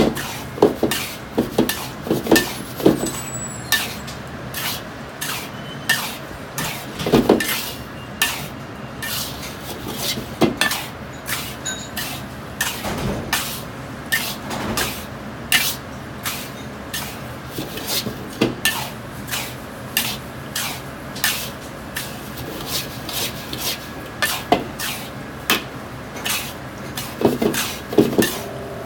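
Metal wok spatula scraping and turning dry salt and spices in a steel wok, a gritty scrape-and-knock about once or twice a second: salt being dry-roasted with spices to make a seasoning salt (jiaoyan).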